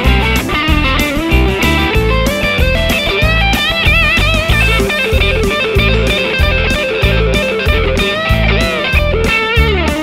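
Fender Telecaster with Tonerider Hot Classics Alnico III pickups playing a lead line of single notes with string bends and vibrato, over a backing track with a steady bass and drum beat.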